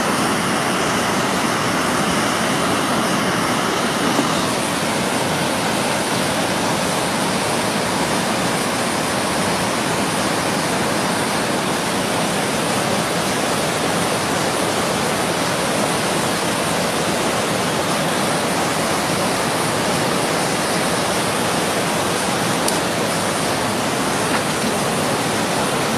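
White-water river rapids rushing steadily over rocks.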